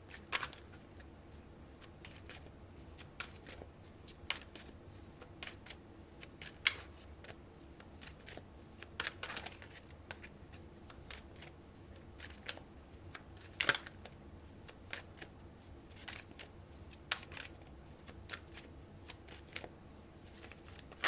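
A deck of oracle cards being shuffled and handled by hand: a long run of irregular soft flicks, swishes and taps.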